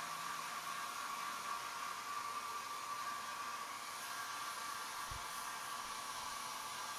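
Hand-held hair dryer running steadily: a constant rush of air with a steady motor whine.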